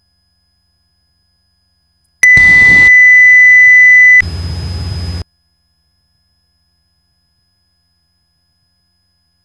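Cessna 172S autopilot disconnect alert tone heard through the intercom: a loud, steady, high beep for about two seconds, then a softer, higher tone for about a second that cuts off suddenly, sounding as the autopilot is switched off.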